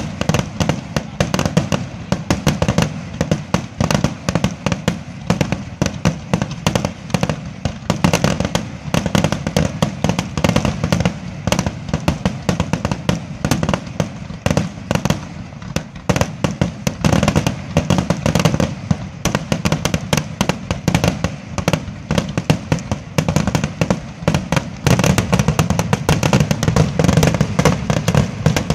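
Fireworks display: a rapid, unbroken barrage of bangs and crackling that grows heavier in the last few seconds.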